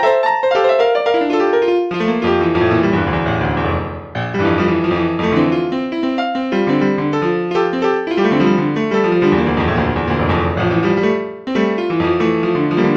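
Piano music: a flowing run of notes, joined by low chords about two seconds in.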